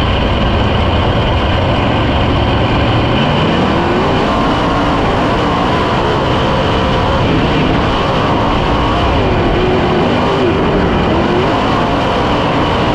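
A 410 sprint car's methanol-injected V8 running hard, heard from the cockpit while racing on a dirt track. About three seconds in the engine rises sharply in pitch under acceleration, then falls and rises again through the turns.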